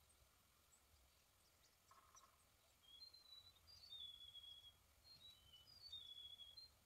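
Faint birdsong: a songbird singing short phrases of clear whistled notes, some held, coming mostly from about three seconds in, over a quiet outdoor background.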